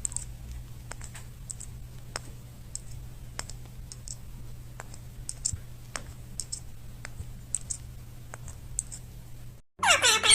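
Irregular light clicks and taps, a few a second, over a steady low hum. Near the end the sound cuts out briefly and a loud call with falling pitch comes in.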